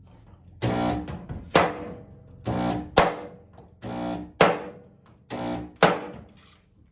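Background music: strummed or plucked guitar chords with a sharp percussive hit about every second and a half.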